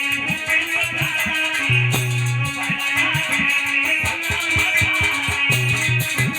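Instrumental music from a live stage band: a plucked-string melody over bass and a quick run of drum beats.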